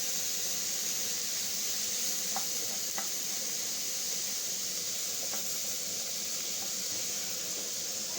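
Pork frying in a pan with a steady sizzling hiss, with a few faint brief high tones over it.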